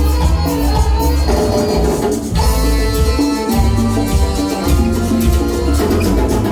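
Loud Latin dance music playing, with a heavy bass line and steady percussion.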